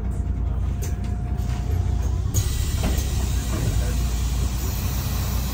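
Inside a moving city bus: a steady low rumble of engine and road noise. About two seconds in, a hiss comes up and stays.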